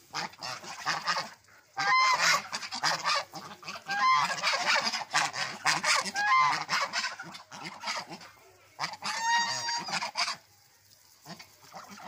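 A flock of domestic white geese honking and calling together in a loud, ragged clamour, with several clear, rising honks standing out. It is the geese begging for food, and it dies down near the end.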